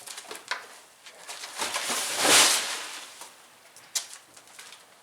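Plastic bag rustling and swishing as it is handled, swelling to its loudest about two seconds in, among a few light clicks.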